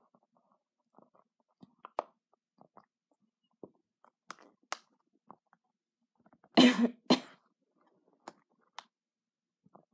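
A person coughing twice in quick succession about two-thirds of the way through, with faint scattered clicks before and after.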